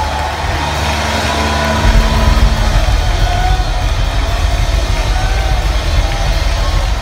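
Live worship music played loud through a PA, with a heavy, dense bass and a crowd singing along underneath.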